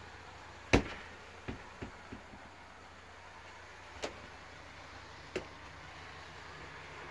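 A sharp click about a second in, then a few lighter clicks and knocks, and two more single clicks later: the door and cupboard catches of a caravan's interior being handled.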